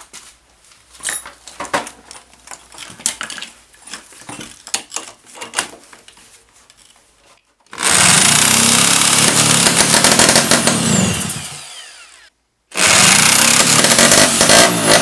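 A power drill spins the two-stroke engine of a Simson SR50 scooter through its flywheel nut in an attempt to start it. The engine is cranked in two long spins: the first starts about eight seconds in and fades out, and after a short pause the second starts near the end. Before the spins there are scattered clicks and knocks as the drill is fitted.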